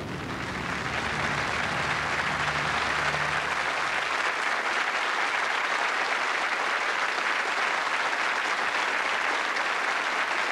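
Studio audience applauding steadily, with the last low notes of the theme music dying away in the first few seconds.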